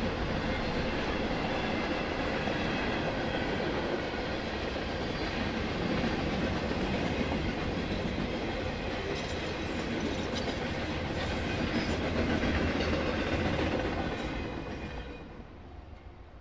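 Freight train cars (covered hoppers, then boxcars) rolling past on the track, a steady running noise from the wheels on the rails. The sound fades away over the last couple of seconds as the end of the train goes by.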